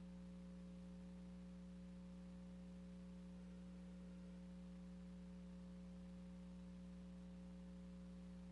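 Near silence: a faint, steady electrical hum with light hiss, unchanged throughout.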